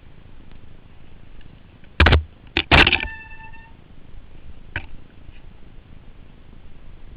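Mountain bike jolting down a rough, rocky trail, picked up by a helmet camera: a steady hiss of riding noise, broken by two loud knocks about two and three seconds in, the second leaving a short metallic ring, and a lighter click near five seconds.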